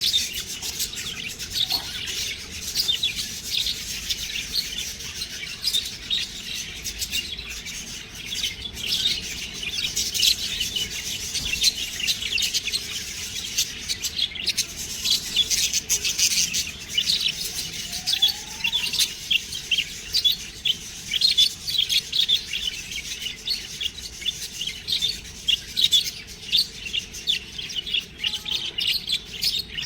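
Budgerigars chirping: a dense, unbroken stream of short high chirps.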